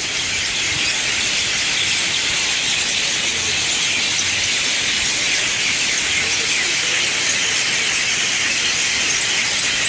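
A large roosting flock of common mynas calling all at once in the tree at dusk, a dense, steady, loud chatter of overlapping chirps and squawks.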